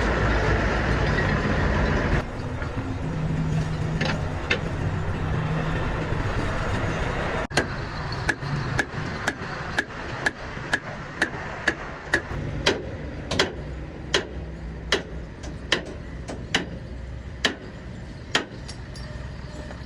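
An engine running steadily with a low rumble, louder for the first couple of seconds; from about seven seconds in, a run of sharp metal strikes, roughly one or two a second, sounds over it.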